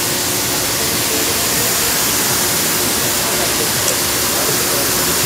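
A steady, even hiss of workshop background noise, with no distinct knocks or tool sounds.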